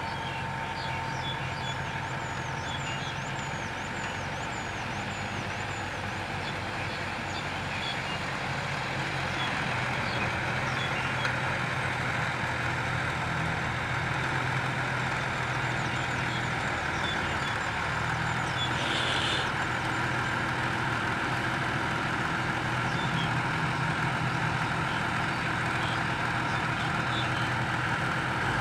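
Diesel engine of a Komatsu PC130 hydraulic excavator running steadily while it digs, joined by a six-wheel dump truck's engine, the drone growing a little louder about a third of the way in. A brief hiss about two-thirds of the way through.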